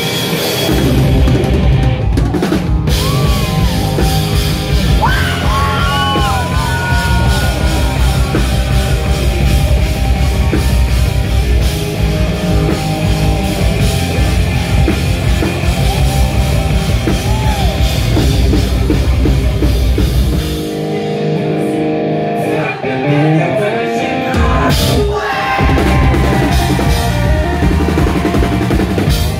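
Live post-hardcore band playing loud: pounding drums, distorted electric guitars and sung vocals. About 21 seconds in, the drums and low end drop out for a few seconds, leaving the guitar alone, then the full band crashes back in.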